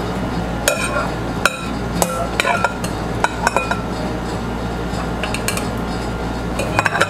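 A metal spoon clinking and tapping against glass and ceramic bowls while spooning cheese into soup bowls, in irregular sharp clicks, over a steady low hum.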